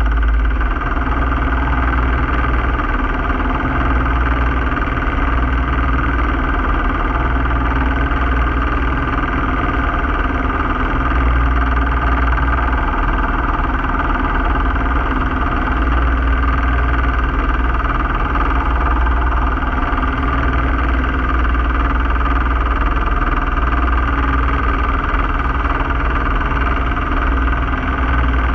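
A yacht's inboard diesel engine running steadily under way, a deep unchanging drone with its low hum swelling and easing every few seconds.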